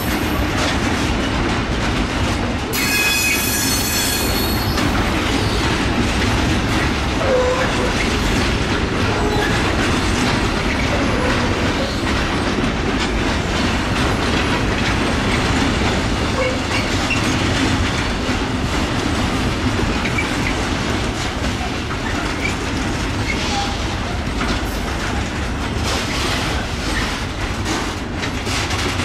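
Intermodal freight train of container wagons, double-headed by electric locomotives, rolling past with a steady rumble and rattle of wheels on the rails. About three seconds in comes a brief high-pitched wheel squeal.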